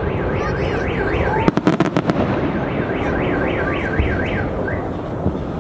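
A car alarm siren warbling rapidly up and down over the firework noise, with a quick cluster of sharp firework bangs about one and a half seconds in.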